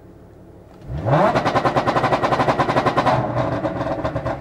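Audi SQ5's supercharged 3.0 TFSI V6, breathing through test pipes, revs up quickly from idle about a second in and is held on its two-step launch-control limiter. The ignition cut makes a rapid, loud machine-gun popping and crackling from the exhaust, which eases off after about three seconds as the revs drop back.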